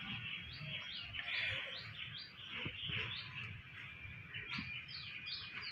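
Small birds chirping: a run of short, high chirps, coming a few a second.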